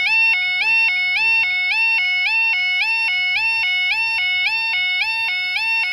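Level crossing audible warning alarm sounding its alternating two-tone yodel, a low note gliding up into a higher one about twice a second. It warns road users that the crossing is closed for an approaching train.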